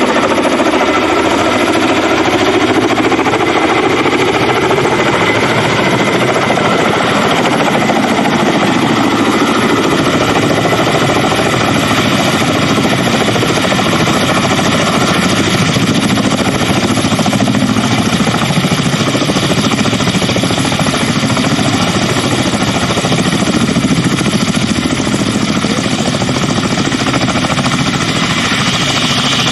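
Kamov Ka-32 helicopter with coaxial rotors and twin turboshaft engines running. Its rotors give a loud, steady, rapid chop, with thin high steady tones above it.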